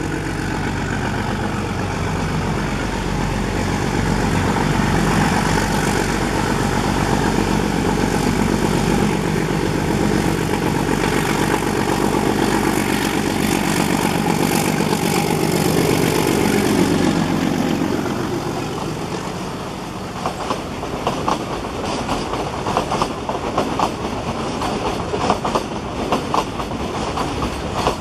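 YDM4 metre-gauge diesel locomotive running as it approaches and passes close by, its engine loudest about two-thirds of the way through and then falling away. The passenger coaches follow, their wheels clattering rhythmically over the rail joints.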